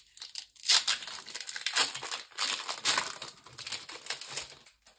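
Foil wrapper of a Pokémon TCG booster pack being torn open and crinkled: a run of irregular crackling rustles that dies away shortly before the end.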